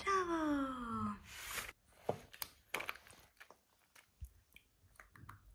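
A toddler's falling, hum-like vocal sound lasting about a second, followed by a sharp smack and scattered soft clicks and mouth noises of eating.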